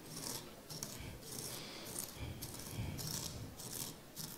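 Dry breading being crushed in a bowl with a hand tool: repeated crunchy, rattling strokes, with a couple of dull knocks against the bowl about two and three seconds in.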